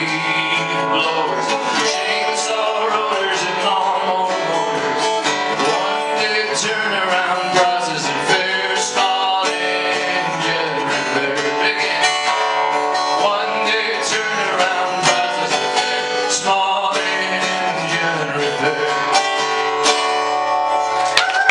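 Live acoustic guitar music: steady strumming with a melody line that bends in pitch, an instrumental passage of a country-folk song.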